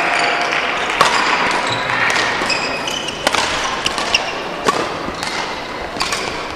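Badminton rally in a sports hall: sharp racket strikes on the shuttlecock a second or two apart, with short shoe squeaks on the court floor over a steady background of hall noise.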